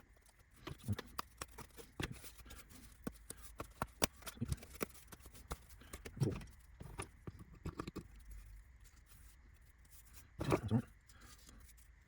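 Scattered sharp clicks and light taps of laser-cut wooden kit parts being pushed out of their sheet, their small holding tabs snapping, and the parts handled on a table. There are a couple of duller knocks midway and near the end.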